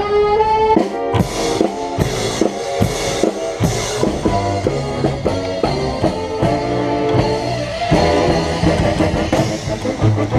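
Mummers string band playing live, with the upright bass close by, drums and plucked strings. A held chord opens the passage, followed by quick, rhythmic repeated notes.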